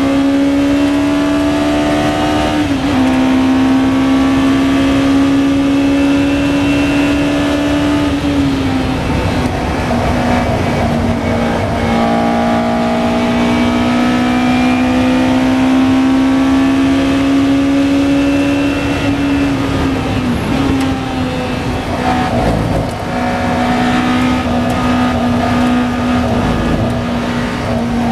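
Lola T292 sports-racing car's engine heard from onboard at full speed, its note held high and climbing slowly, with brief dips several times as the driver shifts or lifts. Wind and road rush lie under the engine throughout.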